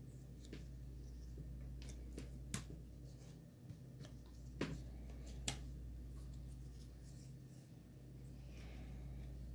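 Cardboard jigsaw puzzle pieces being handled and pressed into place on a table: scattered light clicks and taps, three sharper ones in the middle, over a steady low hum.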